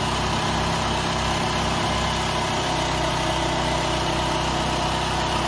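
Chrysler PT Cruiser's four-cylinder engine idling steadily with new spark plugs fitted, running smoothly.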